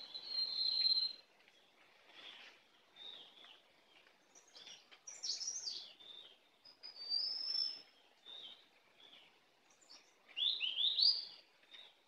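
Wild songbirds calling: bursts of high chirps and short whistled phrases, loudest in the first second and again near the end, with quieter calls in between.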